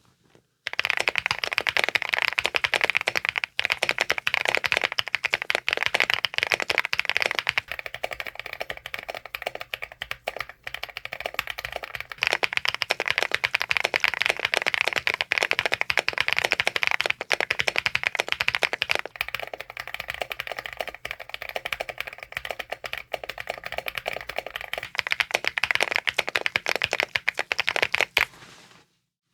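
Fast, continuous typing on a Leobog Hi75C Pro mechanical keyboard fitted with factory-lubed Kiiboom Topaz linear switches on an FR4 plate, giving a bright clack on each keystroke. There are a few brief pauses, and the typing stops shortly before the end.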